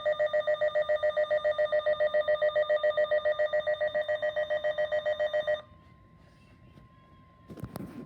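Emergency alert receiver's alarm sounding for a severe thunderstorm warning: a loud, rapidly pulsing electronic beep, about seven pulses a second, that cuts off suddenly about five and a half seconds in. A faint steady tone follows.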